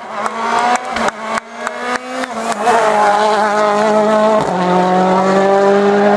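Citroën DS3 rally car's turbocharged four-cylinder engine: a string of sharp exhaust bangs and pops over short revving blips through the first two and a half seconds, then the engine at full throttle with its pitch climbing, an upshift about four and a half seconds in, and climbing again.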